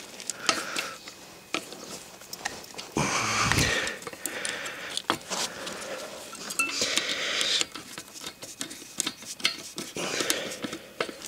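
Metal worm-drive hose clamps being tightened with a 5/16 nut driver: many small metallic clicks and taps of the driver on the clamp screws, with a few longer rasping scrapes as the clamps are turned down.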